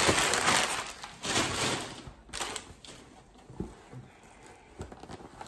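Rustling of a purse's dust bag being handled, loudest in two swells over the first two seconds, then a couple of quieter knocks.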